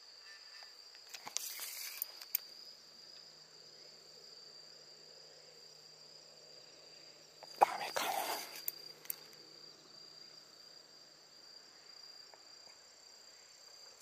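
Insects chirring steadily in a high, unbroken drone. Two short bursts of noise break in, one about two seconds in and a louder one about eight seconds in.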